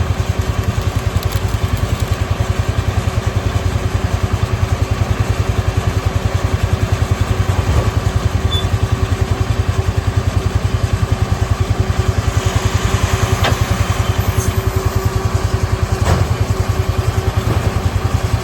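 A tractor engine running steadily under load while pulling a 451M round baler through the windrow, with a fast, even pulsing beat throughout. A couple of short clicks come in the latter part.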